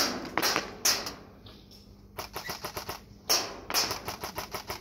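Airsoft rifle firing single shots and short rapid bursts of about ten clicking shots a second.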